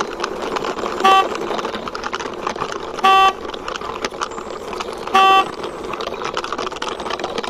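A horn beeps three short times, about two seconds apart, the middle beep a little longer, over a steady rattle of a toy motorbike's plastic wheels being pushed along a surface by hand.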